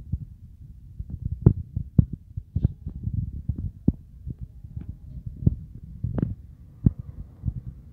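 Low rumbling microphone noise with many irregular knocks and clicks, a few a second at times, the loudest about one and a half, two and six seconds in.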